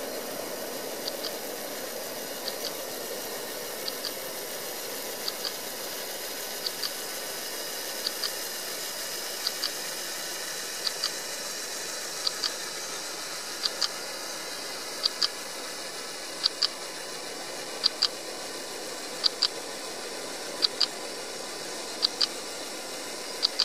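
A Panasonic Lumix G6's shutter firing for a timelapse, a sharp double click about every one and a half seconds, growing louder toward the end, over a steady hiss.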